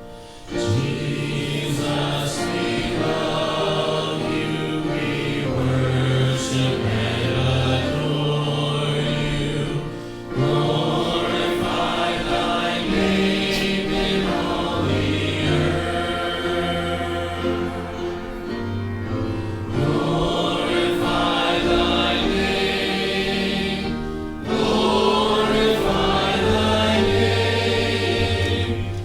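A group of voices singing a hymn together over an accompaniment that holds long low notes, with brief breaks between phrases about 10 and 24 seconds in.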